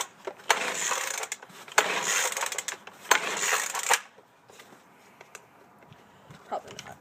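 Recoil starter of a Poulan Pro two-stroke leaf blower pulled hard three times in quick succession, each pull a rasping whir about a second long. It is a cold start on full choke after priming, and the engine does not catch; after the third pull it goes quiet.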